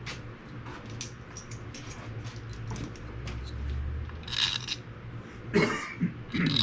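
Small metal parts being handled: scattered light clicks and rattles as the coil-pack bolts and a tool are picked up and set in place, over a steady low hum.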